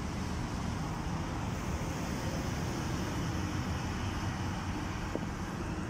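Steady road traffic noise: an even rumble of passing cars with no single vehicle standing out.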